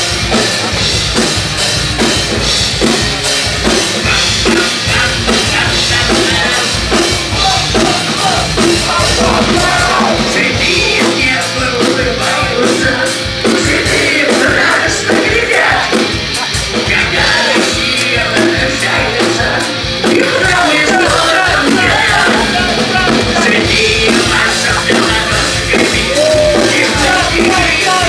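Live punk-rock band playing loudly: electric guitar and drum kit, with a singer shouting and singing the vocals, which are strongest from about ten seconds in.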